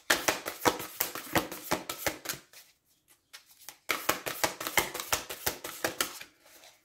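A deck of cards being shuffled by hand: rapid papery clicks and flicks in two bursts of about two and a half seconds each, with a short pause between.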